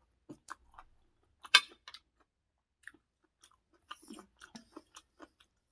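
Close-miked mouth sounds of a person chewing food, a scatter of short wet clicks and smacks, with one much louder bite about a second and a half in.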